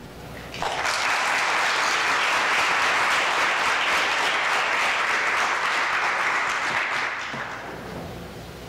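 Audience applauding: clapping that starts about half a second in, holds steady, and fades away over the last couple of seconds.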